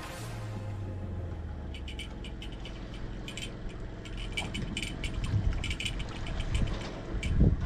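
Fishing reel clicking in quick runs of ticks as line is wound in against a fish on a bent rod, over a low hum at first. A few low thumps come near the end.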